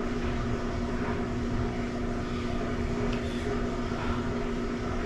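A steady mechanical hum with a low, even drone that holds unchanged throughout.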